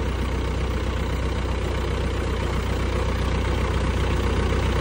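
John Deere 1640 tractor's diesel engine idling steadily.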